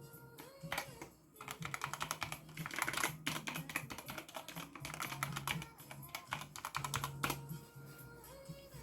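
ABKO AN02 mechanical keyboard with red switches, its keys pressed in quick runs of clacking keystrokes that come thickest through the middle, as in fast typing.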